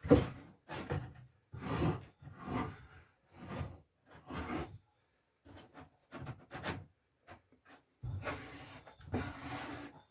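Repeated strokes of a hand woodworking tool rubbing across a board clamped in a homemade vise, about one stroke a second, with a longer unbroken stroke near the end.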